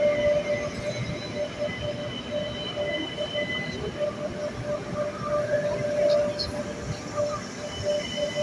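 Electric train running, heard from inside the passenger car: a steady rumble with a continuous whine.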